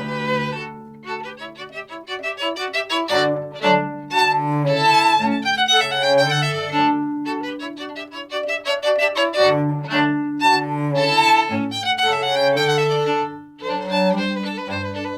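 A baroque string ensemble playing live, violins leading over lower strings in a lively passage of many short, quick notes.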